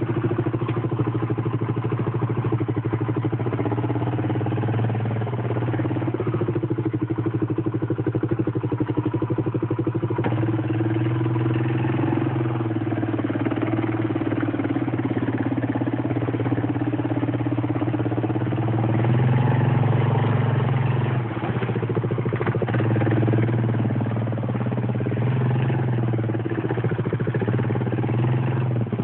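ATV engine running steadily, its pitch shifting a little with the throttle, swelling louder for a couple of seconds about twenty seconds in.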